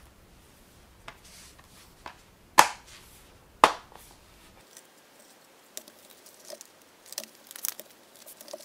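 Plastic DVD keep case being closed: two sharp clicks about a second apart as it snaps shut. Then light ticks and rustling as the cases are handled and set down on cloth.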